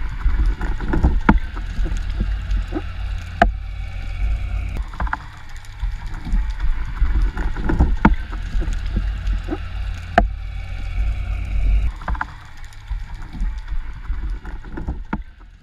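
Underwater sound picked up by a diver's camera as a freediver kicks along with long fins: a steady low rumble of water moving past the housing, with frequent sharp clicks and knocks. Near the end the sound changes as the diver breaks the surface.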